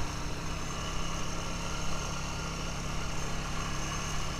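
Honda ATV engine running at a steady speed while the quad rides along a dirt trail, with tyre and wind noise.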